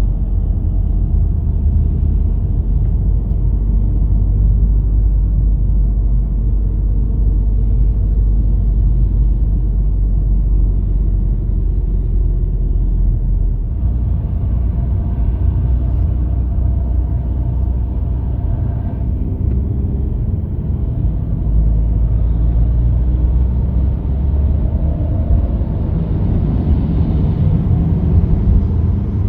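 Steady low rumble of a motor vehicle running, with little change apart from small shifts partway through.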